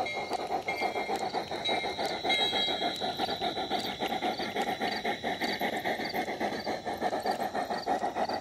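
G-scale model steam locomotive chuffing steadily as its train of log cars rolls past, with the wheels clicking over the rail joints.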